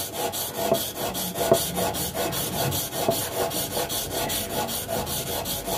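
Stanley hand-plane blade being honed on a wet sharpening stone: steel scraping on stone in quick back-and-forth strokes, about two or three a second.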